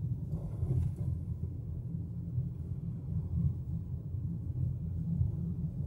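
Steady low rumble of a car's engine and tyres on the road, heard from inside the cabin.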